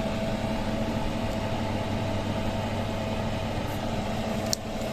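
Window-type air conditioner's fan motor running with a steady hum while the compressor is cut off, the controller having reached its set point.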